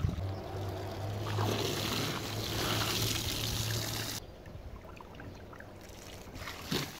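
Water from a garden hose gushing and splashing into a pot and plastic tub as they fill. About four seconds in the sound drops suddenly to a quieter, softer run of water, with a short bump near the end.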